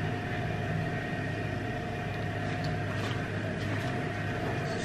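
Steady low mechanical hum, like a fan or other running appliance, with a few faint ticks.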